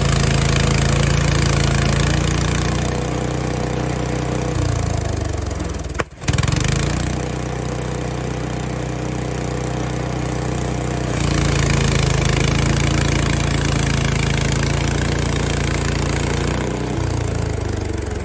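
Small gas engine of a Frontier OS23 portable band sawmill running steadily while an ash log is sawn into boards. Its speed steps down about four seconds in, comes back up about halfway through, and drops again near the end. The sound cuts out very briefly about six seconds in.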